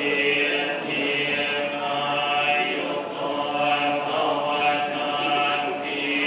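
A group of voices chanting Buddhist verses in unison, on a steady, drawn-out pitch.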